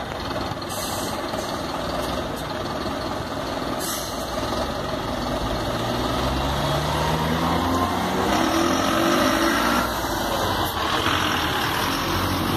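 Mercedes-Benz diesel city bus pulling away and driving past close by, its engine rising in pitch as it accelerates about halfway through, with a couple of short hisses of air from the brakes.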